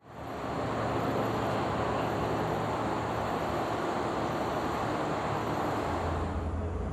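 Steady rushing outdoor background noise, like distant traffic, fading in at the start; about six seconds in it gives way to a lower, steadier hum.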